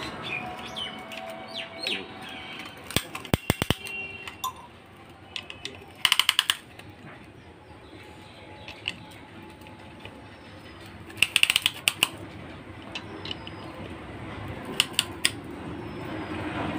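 Ratchet of a piston ring compressor clicking as its band is wound tight around the piston rings with a key, in several short runs of rapid clicks.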